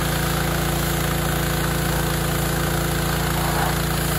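Pressure washer running steadily, with the hiss of its jet spraying the corrugated steel side of a shipping container.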